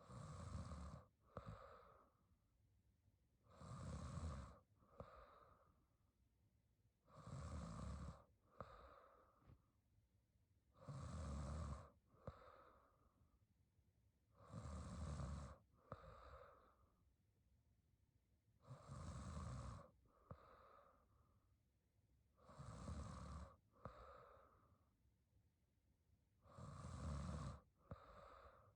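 A young woman snoring quietly in her sleep, about one snore every four seconds, each followed by a shorter, softer breath.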